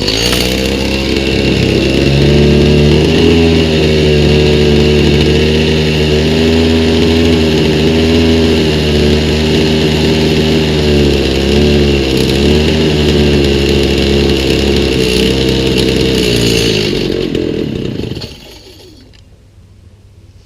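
Stihl MS290 two-stroke chainsaw engine running on a newly fitted aftermarket carburetor at its out-of-the-box settings. It starts abruptly, runs at a steady speed that wavers slightly, and dies away about eighteen seconds in.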